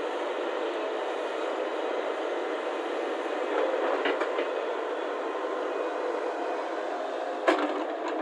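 Heavy earthmoving machine's diesel engine running steadily, with a sharp knock near the end.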